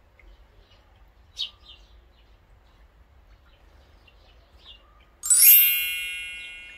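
Small garden birds chirp: one sharp chirp about a second and a half in, and fainter ones later. About five seconds in, a bright bell chime strikes and rings out, fading slowly; it is a subscribe-button sound effect.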